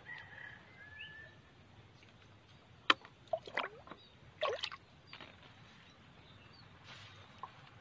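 Liquid fertilizer solution poured from a cup on a long handle into the planting holes of young chili plants in plastic mulch: a few short, faint pours, with a sharp knock about three seconds in.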